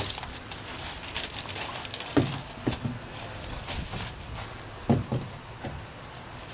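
A sheet of plywood being handled and fitted over stud bolts on a wall: scattered wooden knocks and scrapes. The loudest knocks come about two seconds in and about five seconds in.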